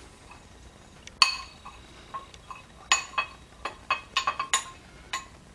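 Metal spoon clinking against glass as dry spice rub is scooped from a glass bowl into a small glass jar: a few single clinks, then a quick run of clinks after about three and a half seconds.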